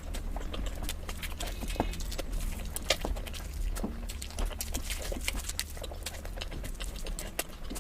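Close-miked eating sounds: irregular wet clicks, smacks and small crackles of someone chewing food, over a steady low hum.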